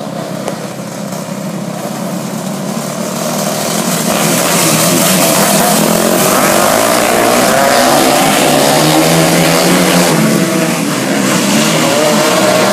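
A pack of 250cc winged dirt kart engines running hard, growing louder as the karts close in and pass close by about six seconds in. The pitch of the engines keeps wavering up and down.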